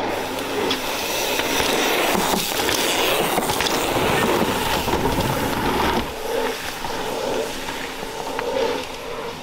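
Mountain bike tyres rolling over a packed dirt trail, a rough, noisy rumble that grows heaviest around four to six seconds in and then drops away to a quieter rolling hiss.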